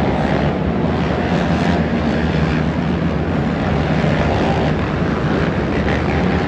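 A pack of ATV (quad) engines running together as they race around a dirt track, a steady droning engine noise in a large indoor arena.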